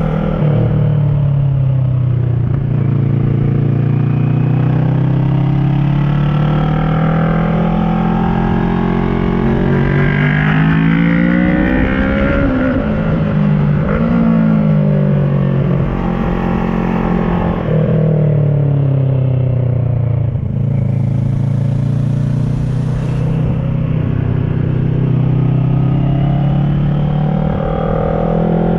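2010 Kawasaki ER-6n's 649 cc parallel-twin engine through an SC Project carbon exhaust with its dB killer fitted, under way on the road. Its revs repeatedly climb and drop back with the throttle and gear changes, falling lowest about halfway through before pulling up again.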